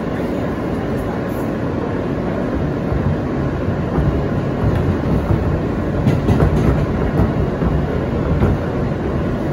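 An R160A subway car running along the track, heard from aboard: a steady rumble of wheels on rail with clickety-clack rail-joint clicks. It gets a little louder and rougher from about four seconds in.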